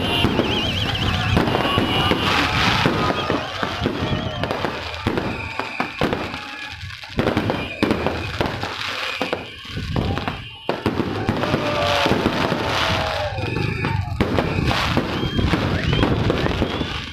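New Year fireworks going off in a dense, continuous barrage of bangs and crackles, with a few short whistling glides mixed in.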